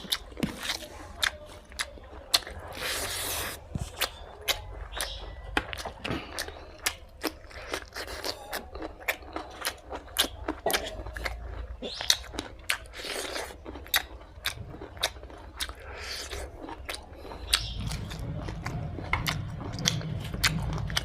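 Close-up chewing and biting of pork fry and rice: irregular wet mouth clicks and smacks, some crunchy. A low steady hum joins near the end.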